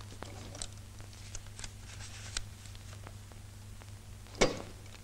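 Faint, irregular taps and clicks of someone moving about and handling things at a wooden cupboard, with one louder knock about four and a half seconds in, over a steady low hum.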